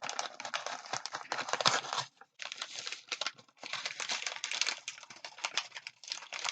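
Packaging being unwrapped by hand: crinkling and rustling of paper or plastic wrap in stretches, with brief pauses.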